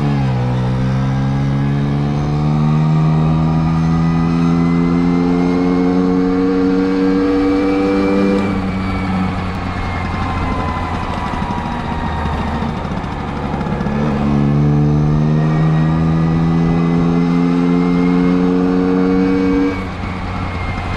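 Vespa V50N's 50 cc two-stroke single-cylinder engine pulling the scooter along, its pitch rising steadily as it accelerates. It drops away about eight seconds in as the throttle closes, climbs again from about fourteen seconds, and falls off near the end, over a steady low rumble.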